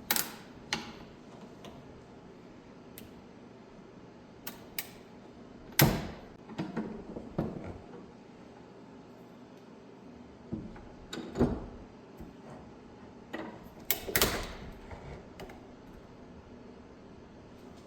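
Irregular clicks, clunks and creaks of a used spin-on oil filter being handled and cut open with a tool, with a few sharper knocks among them.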